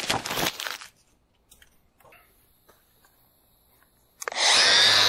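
A paper instruction sheet crumpled by hand in the first second. About four seconds in, a handheld power tool starts up with a loud steady high whine over a low hum.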